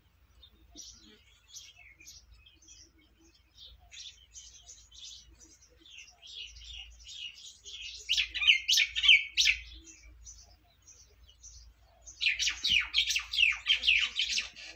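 Small birds chirping: scattered high chirps, with two louder spells of rapid chirping, the first about eight seconds in and the second about twelve seconds in.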